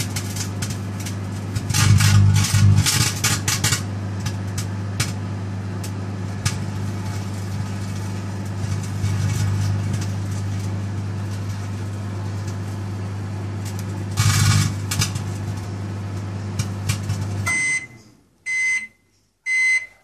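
Microwave oven running with a steady hum while the metal layer of a DVD-R disc inside arcs, with loud crackling sparks in the first few seconds and again about two-thirds of the way through. Near the end the oven shuts off and beeps three times.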